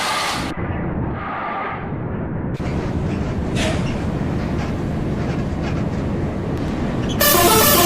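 Tour bus engine running, with a broad hiss of air that cuts off about half a second in. Near the end the Basuri telolet horn starts, playing a short tune of stepped musical tones that is much louder than the engine.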